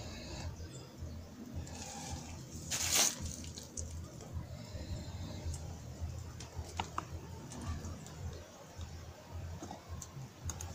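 Quiet room tone: a steady low hum with faint rustles and small clicks, and one brief louder rustle about three seconds in.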